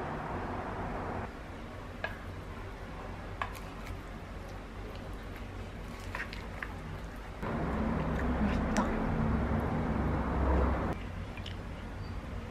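A metal spoon mixing salad in a wooden bowl: soft squishing with a few light clicks, over a steady background hum that grows louder for a few seconds past the middle.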